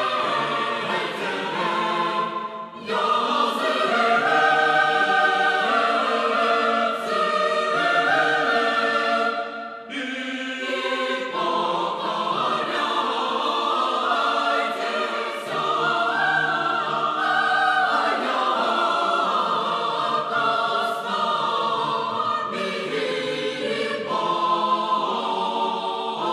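Choir singing sacred choral music in long held chords, phrase after phrase, with short breaths between phrases about three and ten seconds in.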